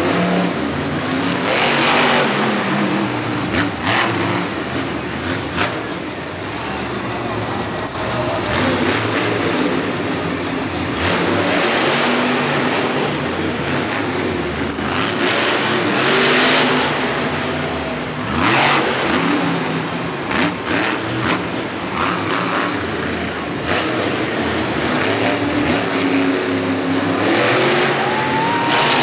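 Monster truck engine revving hard, its pitch rising and falling, with several sharp bangs along the way.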